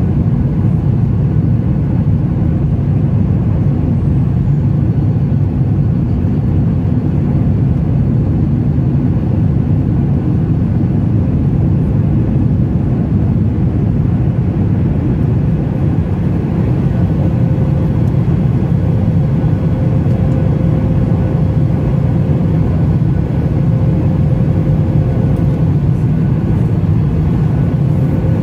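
Cabin noise of a Boeing 737 MAX 8 climbing out after takeoff, heard from a seat over the wing. Its CFM LEAP-1B engines and the airflow give a loud, steady, deep rumble, with a faint steady tone that grows a little stronger about halfway through.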